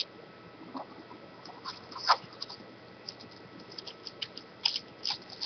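Faint scattered crinkling and scratching as hands handle and open a foil trading-card pack and the cards inside.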